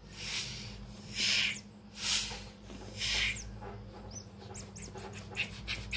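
Adhesive packing tape (lakban) being pulled off the roll and stuck over the holes in an RC crawler tyre: four separate ripping screeches, each about half a second long, then from about four seconds in a quick run of short sticky crackles as the tape is pressed and peeled.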